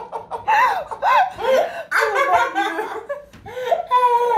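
Women laughing hard, in repeated bursts whose pitch rises and falls.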